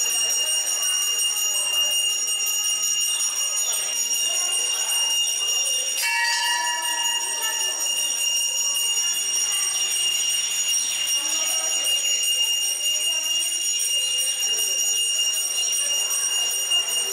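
Temple bells ringing: a continuous high, shimmering ring goes on throughout, and about six seconds in a larger bell is struck once and rings out. Voices murmur underneath.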